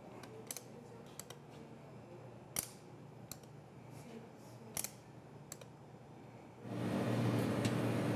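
Scattered sharp metallic clicks from a piston dosing funnel dispensing mixture into a stainless-steel popsicle mould. About two-thirds of the way through, a steady low machine hum from a commercial popsicle freezing machine starts.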